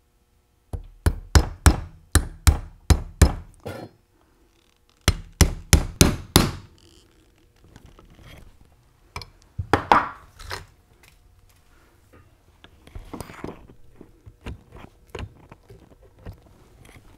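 Hammer striking a punch to drive the pivot pins into a Hurst Competition Plus shifter held in a bench vise. A quick run of about nine sharp strikes comes first, then a pause and about six more, then lighter knocks and clinks as the parts are handled.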